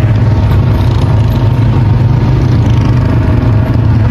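A motor vehicle's engine running steadily with a loud, constant low rumble.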